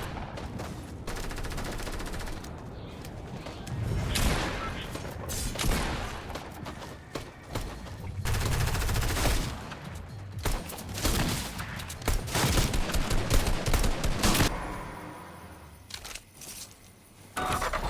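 Video game gunfire: repeated bursts of rapid automatic weapon fire and blasts from a shooter game's sound, thinning out and dropping quieter about fifteen seconds in.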